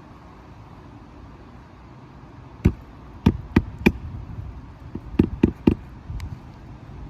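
Roofing hatchet driving roofing nails through an asphalt shingle: a run of four sharp blows, then about a second later three more, refastening a lifted shingle.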